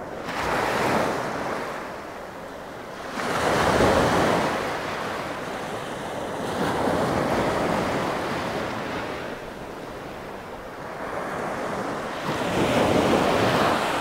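Small Black Sea waves breaking at the water's edge and washing up over a sandy beach, four swells of surf, the loudest about four seconds in.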